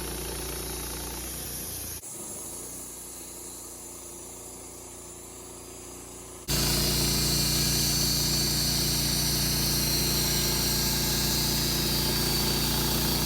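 Wood-Mizer LT15 band sawmill's gasoline engine running steadily, in cut-together stretches that change abruptly about two seconds in and again past six seconds. The last stretch is much louder, with a strong hiss over the engine.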